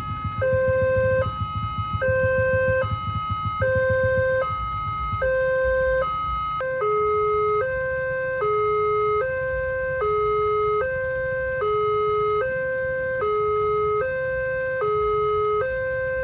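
Railway level-crossing warning alarm sounding a steady two-tone hi-lo, switching pitch about every 0.8 seconds. About six and a half seconds in, the lower tone drops slightly in pitch. A low rumble underneath fades out around the same time.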